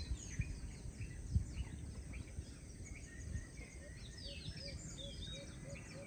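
Dusk chorus of many birds chirping and twittering. From about four seconds in, a low note repeats about three times a second. A few low bumps sound under it, the loudest about a second and a half in.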